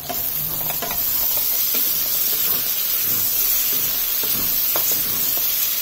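Steady sizzling hiss of cubed potato and pumpkin frying in mustard oil in a steel kadhai, with a few faint scrapes of a spatula stirring them.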